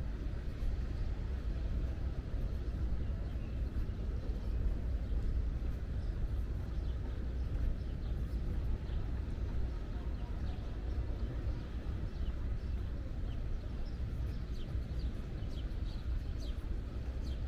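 Outdoor park ambience: a steady low rumble with short, high bird chirps scattered through the second half.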